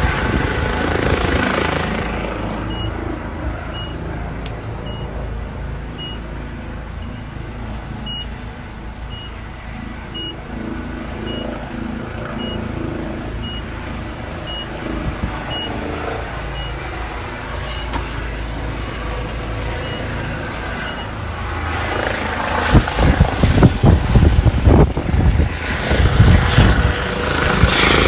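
Airbus H130 helicopter's turbine and rotor running at a steady level, with a short beep repeating about every three quarters of a second through the first half. About 22 seconds in it grows much louder as the helicopter departs, and gusty low rumbling from the rotor downwash buffets the microphone.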